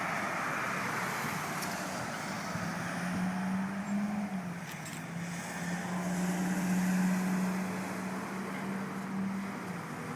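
A vehicle engine running steadily, a low hum that swells slightly twice.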